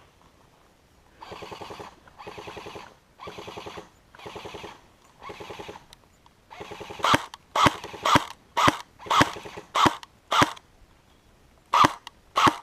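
Airsoft guns firing: five short full-auto bursts about a second apart, then a run of louder, sharper shots about two a second, with a brief pause before the last two.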